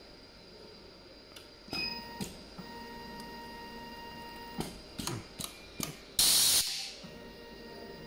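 Automatic optical fiber jacket stripping machine running a strip cycle: sharp clicks and clacks of its clamping and stripping jaws, a faint steady whine for a couple of seconds, more clicks, then a short loud hiss of air about six seconds in.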